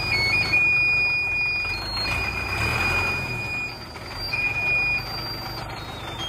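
The diesel engine of a three-wheeled công nông tipper truck running, with a low, even pulsing and a swell in level about two to three seconds in. Thin, high whistling tones that step from pitch to pitch sound over it.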